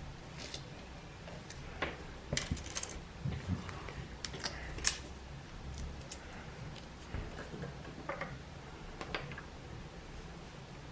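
Irregular light clicks and taps of small hand tools against the iPad's metal housing as it is worked on, the sharpest a little under five seconds in.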